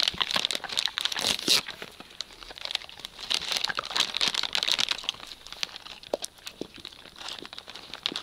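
Plastic dog-treat packet crinkling as it is handled and rummaged in, in bursts that are loudest in the first second and a half and again from about three to five seconds in.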